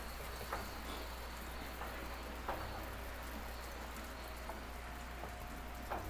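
Pieces of fry bake dough frying in hot oil: a steady sizzle with a few sharp pops.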